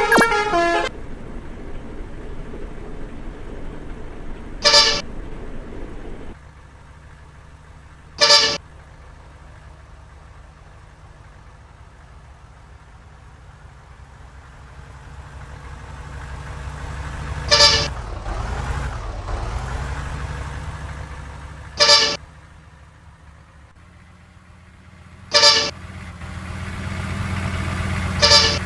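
Short, loud horn toots from passing road vehicles, six brief blasts spread through the stretch, over engine noise that swells as vehicles go by in the middle and near the end. The tail of a multi-note musical horn tune, the 'telolet' type, ends right at the start.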